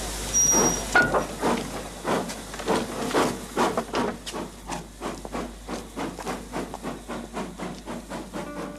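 Steam locomotive pulling out of a station: a short high whistle, then exhaust chuffs that quicken and grow fainter as the train gathers speed.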